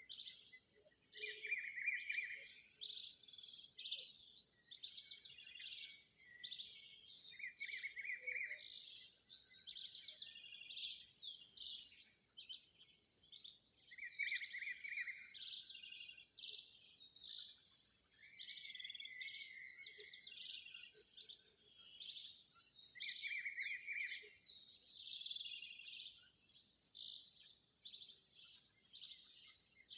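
Dawn chorus of birds in open countryside: many birds chirping and calling, one repeating the same short phrase every five or six seconds, over a steady high trill of insects.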